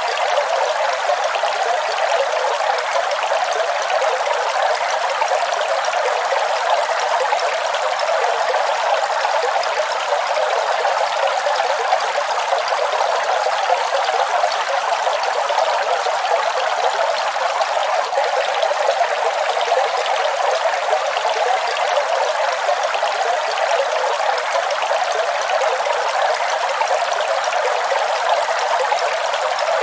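Waterfall: water pouring and splashing in a steady, unbroken rush, with a hiss but little low rumble.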